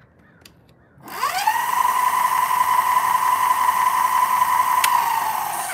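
Spark Bandit electric bike's motor whining as the throttle is opened with no weight on the bike and the rear wheel spinning freely. The whine rises quickly about a second in, then holds at a steady high pitch while the wheel spins up to an indicated 50 mph, and starts to fall away at the very end.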